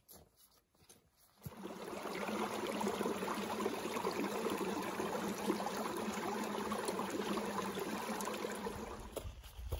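Running water, starting suddenly about a second and a half in and stopping near the end, with a steady low hum beneath the splashing.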